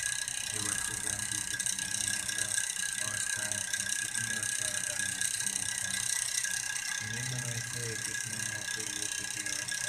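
A steady, even mechanical buzz with several steady high-pitched tones running under everything, with no change in level.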